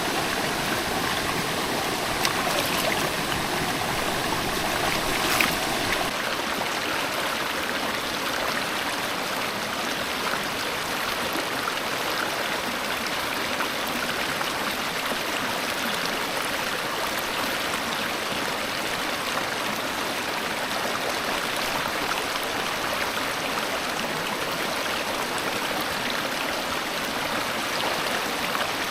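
Stream water running steadily over rocks, a continuous babbling rush, with a light tap about five seconds in.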